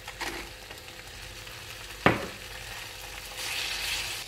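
Chicken pieces in tikka marinade sizzling in a non-stick frying pan, with one sharp knock about two seconds in. Near the end a silicone spatula scrapes and stirs them in the pan.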